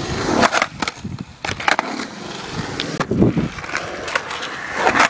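Skateboard wheels rolling on a concrete bowl, a steady grinding hiss, broken several times by sharp clacks of the board and trucks hitting the concrete, the loudest near the end.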